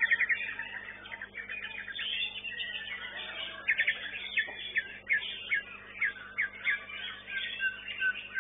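White-rumped shama (murai batu) singing a fast, varied run of whistled and trilled phrases, ending in a string of short repeated notes.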